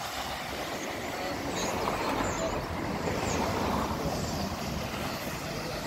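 Strong sea wind blowing over the microphone with the sea behind it: a steady rushing that swells in the middle and eases again.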